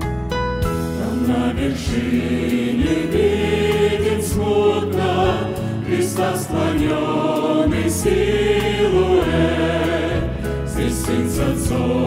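Church choir singing a hymn, with two men's voices leading.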